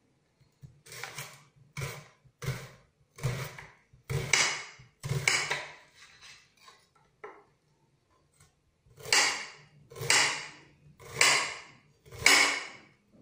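Kitchen knife cutting a red onion on a cutting board: about ten separate cuts, roughly one a second, with a pause of a few seconds in the middle.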